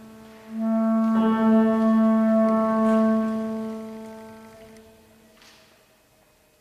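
Bass clarinet playing one long sustained note that comes in about half a second in, holds, and then dies away over the last few seconds.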